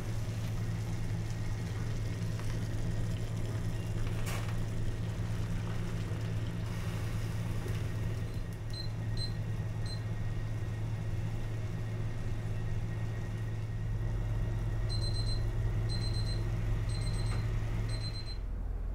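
Saucepan of water boiling on a glass-top cooktop, with a steady low hum. One sharp click about four seconds in. Electronic beeps: three short ones about nine seconds in, then four longer ones about a second apart near the end.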